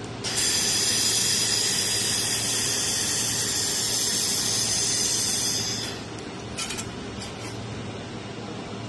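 Handheld fiber laser welder running a weld on 1 mm stainless steel plate: a loud, high hiss with a thin whine, starting just after the beginning and cutting off after about five and a half seconds. A couple of light clicks follow, over a steady machine hum.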